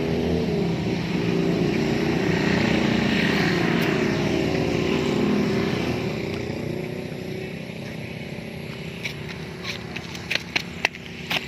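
A motor engine running steadily, loud at first and then fading away over the second half. Several sharp knocks come near the end.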